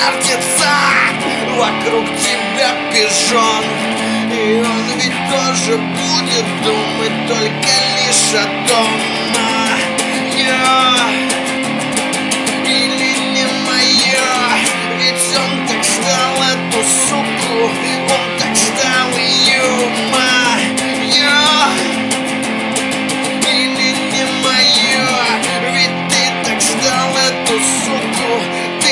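Music track led by plucked guitar over a steady low bass line.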